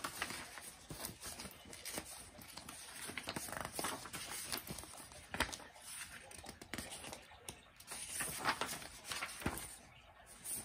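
Sheets of vintage newspaper paper rustling and crinkling as a stack is handled and leafed through, with many small flicks and taps of the paper scattered throughout.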